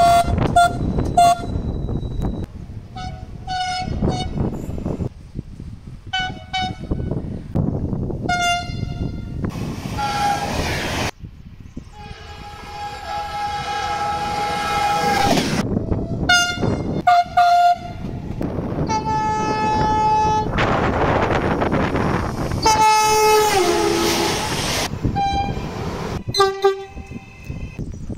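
Italian train horns sounding again and again: clusters of short toots and several longer blasts, the longest about three seconds near the middle, one dropping in pitch towards the end, over the rush of passing trains.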